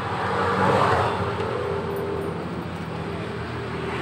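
A motor vehicle's engine running steadily, swelling briefly about a second in and then settling back.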